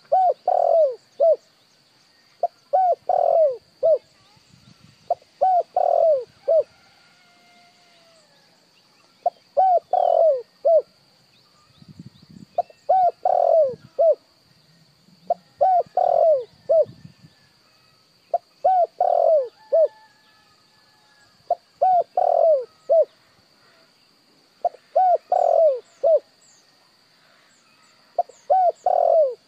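Spotted dove cooing: a short phrase of three or four coos, repeated about every three seconds. A faint steady high whine runs underneath, and faint chirps of smaller birds come in near the end.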